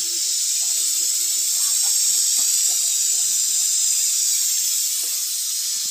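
Pressure cooker blowing off steam through its propped-open weight valve: a steady, loud hiss. The pressure is being vented so that the lid can be opened safely.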